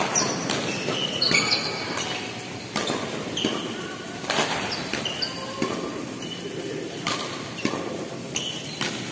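Doubles badminton rally: repeated sharp racket hits on the shuttlecock, every second or so, mixed with short high squeaks of shoes on the court floor.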